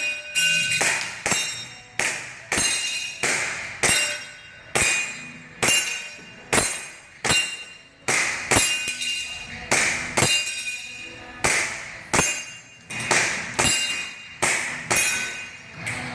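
Airsoft pistol shots, each ringing off a steel target, fired at a steady pace of about one and a half shots a second. Every hit leaves a metallic ring that fades away.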